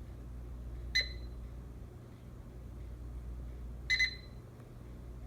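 Whirlpool over-the-range microwave's control panel beeping: one short electronic beep about a second in, then two quick beeps near four seconds, over a steady low hum.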